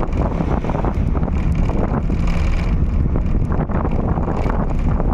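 Interior of a moving bus on a rough road: a steady low engine and road rumble with frequent rattles and knocks, and wind buffeting the microphone at the open window.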